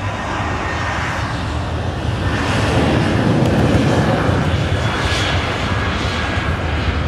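Boeing 737-800's CFM56 jet engines at takeoff power during the takeoff roll: a rushing jet noise that swells to its loudest about halfway through, over a steady low rumble.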